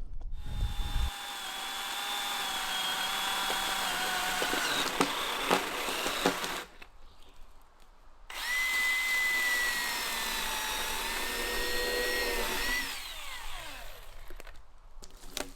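Chainsaw bucking a log to length: it runs steadily for about six seconds, stops briefly, then cuts again for about five seconds before its pitch drops as it winds down.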